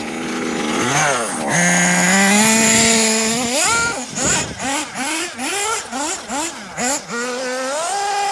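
Kyosho Inferno MP9 TKI4 nitro RC buggy's small nitro engine revving hard: it climbs and holds at high revs for about two seconds, drops, then is blipped repeatedly in quick short bursts before climbing and holding again near the end.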